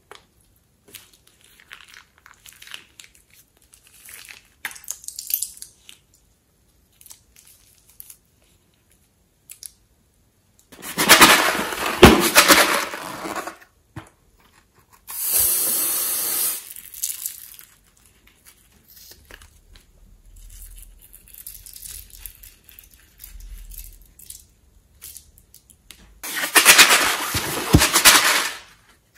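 Slime-making handling sounds: soft, scattered squeezing of glue from a piping bag, then three loud bursts of one to three seconds each as rubber balloons are handled and cut open with scissors over a glass bowl.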